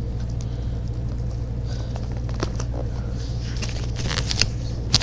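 Paper and sticky tape being handled: scattered small crinkles and rustles that grow busier near the end, over a steady low hum.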